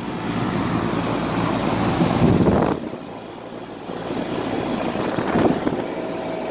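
2002 Carrier 38CKC central air conditioner condensing unit running: a steady compressor hum under the rush of its fan, briefly quieter about three seconds in. The air comes out only around the sides, not the top, which the owner puts down to a plugged coil or a fan spinning in reverse.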